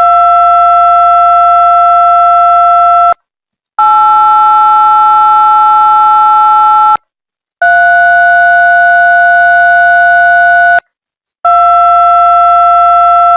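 Synthetic DTMF telephone keypad tones generated in Audacity, played back as long, loud beeps. Each is two steady pitches sounding together, and they come in a sequence of about three-second tones separated by short gaps, with the pitch pair changing from one tone to the next.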